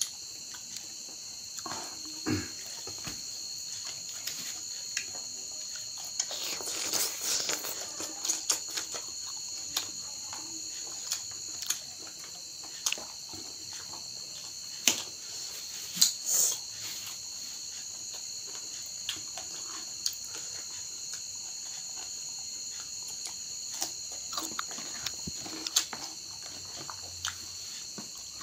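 Eating by hand, close up: chewing and crunching raw vegetables such as water spinach with rice, with scattered lip smacks and clicks. The loudest are a few sharp smacks about halfway through and one near the end. A steady high chirring of crickets runs underneath.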